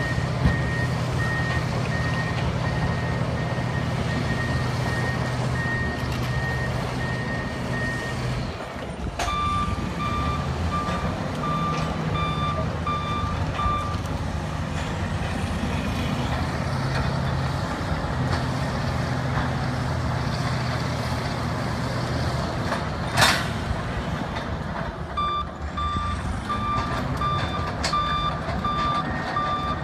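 Two big diesel bulldozers, a Caterpillar D9 and a Komatsu D275, running under load with their backup alarms beeping as they reverse. A higher-pitched alarm beeps steadily for about the first eight seconds, then a lower-pitched one beeps for about five seconds from nine seconds in and again near the end. A single sharp knock about twenty-three seconds in.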